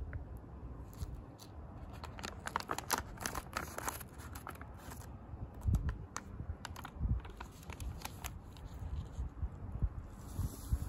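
A plastic packet of Louisiana Fish Fry crawfish, shrimp and crab boil seasoning crinkling and crackling as it is handled and opened, with a few dull handling thumps. Near the end a soft hiss begins as the packet is tipped over the pot of water.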